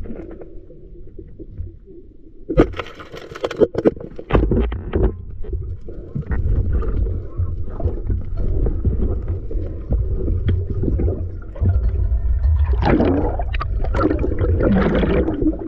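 Underwater sound from a camera held by a diver swimming in a shallow stream: a steady low, muffled rumble of water moving past the housing. A cluster of sharp clicks and knocks comes about three to five seconds in, and louder bubbling and gurgling near the end as the camera comes up just under the surface.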